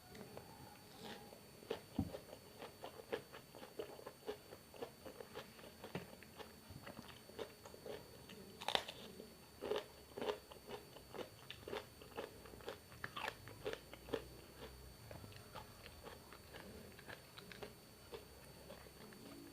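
Close-miked chewing of food: a fast run of small wet clicks and crunches with occasional sharper bites, the loudest crunch about nine seconds in, thinning out near the end.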